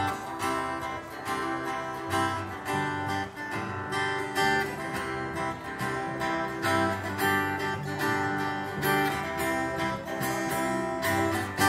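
Acoustic guitar strummed in a steady rhythm, playing a song's instrumental introduction with no singing yet.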